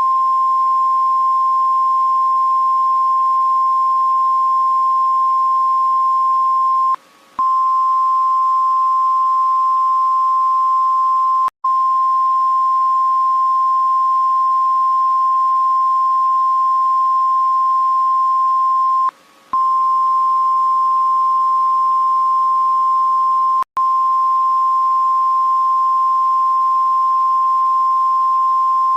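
Emergency alert system (EAS) alarm: a loud, steady, high single tone, broken by four brief gaps.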